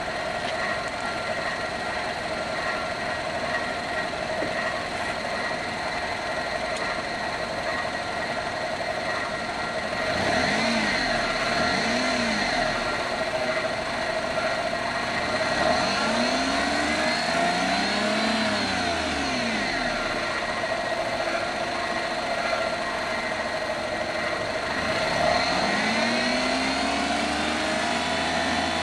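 Daihatsu Mira's three-cylinder kei engine idling, then revved: two short blips about ten seconds in, followed by two longer revs that rise and fall back to idle. An intermittent rattle, a 'karakara' sound, comes from the engine, which the owner reports has been present since start-up.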